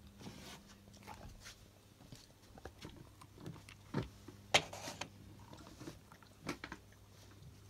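Faint handling noise: scattered soft taps, knocks and rubbing as a rubber shark hand puppet is moved and bumped against things, with two sharper knocks just past the middle.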